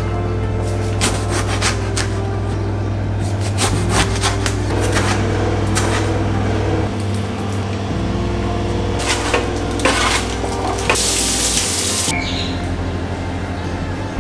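Kitchen knife cutting an eggplant on a wooden chopping board: a string of short knocks and taps against the board, over soft background music. About eleven seconds in there is a brief hiss.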